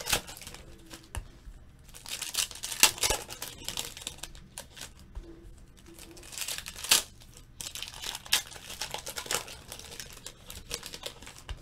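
Plastic trading-card pack wrappers being torn open and crumpled by hand, crinkling in several bursts with short pauses between.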